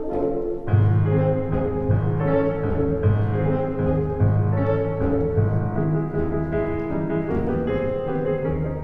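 Classical ballet music with piano-like keyboard and low strings: a melody over a heavy bass line that comes in about a second in.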